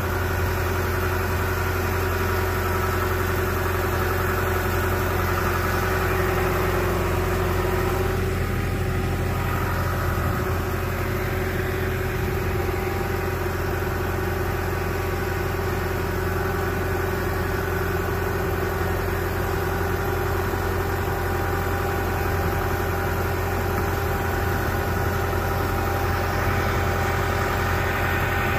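An engine running steadily at an even speed, a constant low drone with a slight change in its tone about eight seconds in.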